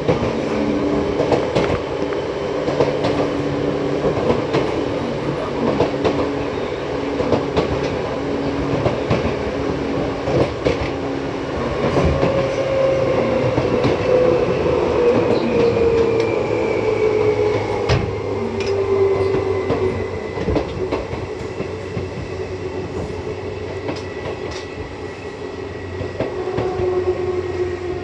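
Seibu 2000 series electric train running, heard from inside the passenger car: a steady rumble with wheels clicking over rail joints. From about twelve seconds in, a whine from the traction motors and gearing falls slowly in pitch as the train slows.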